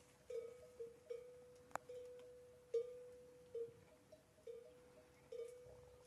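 Camel's neck bell clanking at uneven intervals, about eight strikes that each ring on at one pitch, as the camel moves its head while feeding. A brief sharp click sounds once, a little before two seconds in.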